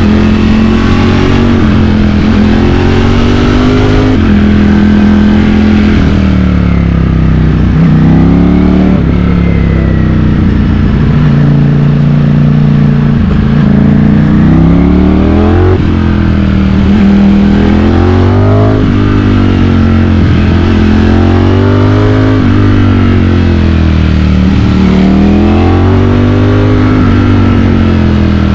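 Ducati Streetfighter V4's V4 engine heard from on board while riding, its pitch climbing and falling over and over as the throttle opens and closes through the bends, with a steadier, lower-pitched spell about halfway through.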